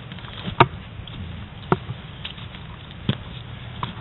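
Four sharp clicks or knocks, a second or so apart, over a steady low rustle of movement, picked up by a camera mounted on an airsoft gun as the player moves through brush.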